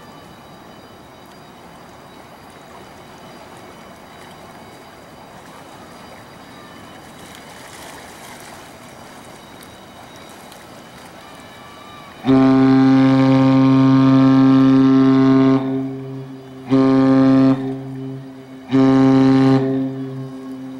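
A ship's deep horn sounds one long blast of about three seconds, then two short blasts. Before it comes in, about twelve seconds in, there is only a low steady rumble.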